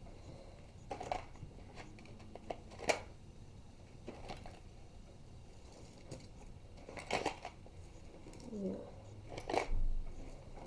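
A few scattered clicks and rustles of small objects being handled, about one every second or two.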